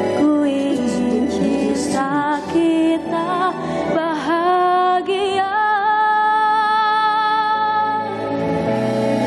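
A female vocalist singing a slow song over instrumental backing. She sings a long, wavering note in the second half.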